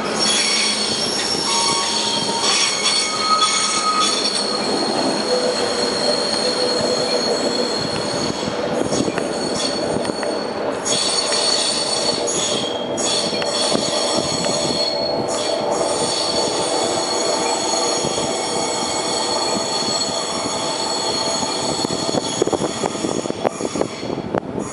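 Steel wheels of a slow-moving MTR engineering train squealing on a tight curve in the depot: several shrill high tones that shift and drop out briefly a few times, over the steady rumble of the train.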